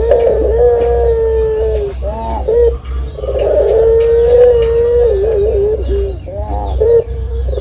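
Puter (collared dove) cooing in long held notes, each drawn out for one to two seconds, broken by short wavering coos.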